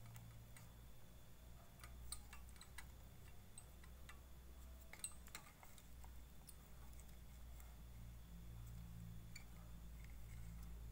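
Faint, scattered clicks and ticks of small parts being handled while an impeller fan is fitted onto an electric motor, with a faint low hum underneath.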